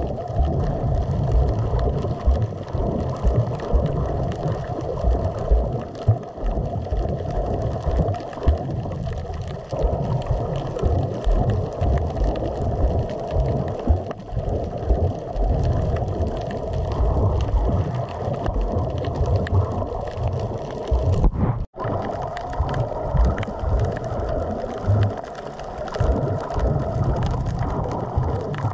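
Muffled underwater sound picked up by a camera in a waterproof housing: an uneven, dull rumble of moving water with many small knocks. It cuts out for a moment a little past twenty seconds in.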